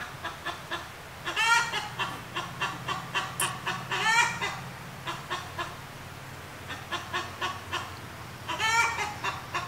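A hen's egg song after laying: runs of short clucks, a few a second, each building to a loud, drawn-out cackle, three times over.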